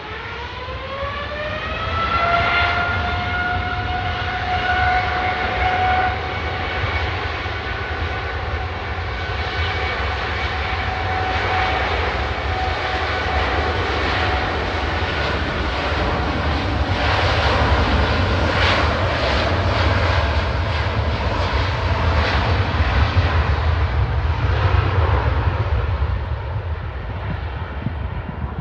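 Jet airliner's engines spooling up to takeoff thrust, a whine rising in pitch over the first two to three seconds, then a steady whine and roar as the aircraft accelerates on its takeoff roll.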